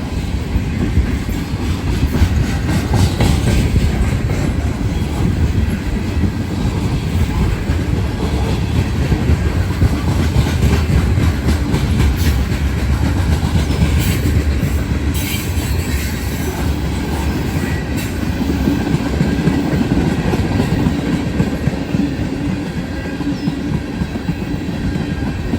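Freight train cars rolling past close by: a steady low rumble of wheels on rail, with sharp irregular clicks and clacks from the wheels.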